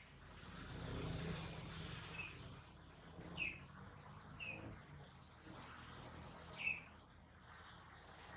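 About five short, high chirps spaced a second or so apart, over a low rumble that swells about a second in.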